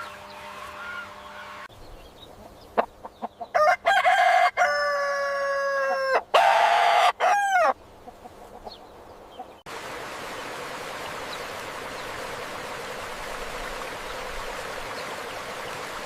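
A rooster crowing once, a long call in a few syllables that ends in a falling note. A few seconds later the sound switches suddenly to a steady rushing noise.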